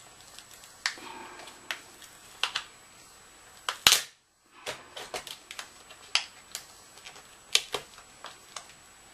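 Irregular sharp clicks and taps of plastic and metal laptop screen parts being handled while the LCD panel is taken out, the loudest a little before halfway, followed by a brief moment of silence.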